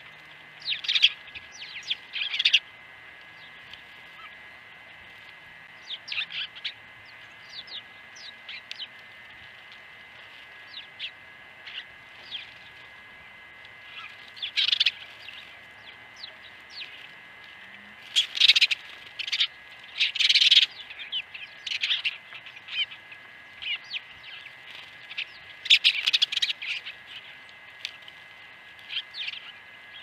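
A flock of house sparrows chirping at a feeder: short, high chirps in scattered clusters, with louder bursts of several birds calling together a few times.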